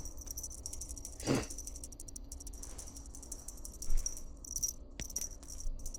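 Faint room sounds of light rattling and handling, with a short soft noise about a second in, a bump near four seconds and a sharp click near the end.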